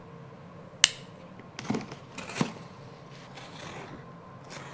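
A folding pocket knife's blade snaps open with one sharp click about a second in. Two softer knocks follow as the knife and the cardboard box are handled.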